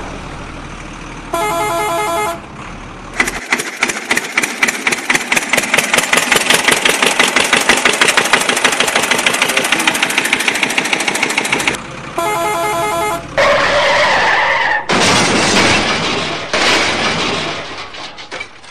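Vehicle horn sound effect honking briefly twice. Between the honks comes a long run of rapid rattling, engine-like pulses that speed up and grow louder, and near the end there are bursts of hiss that fade away.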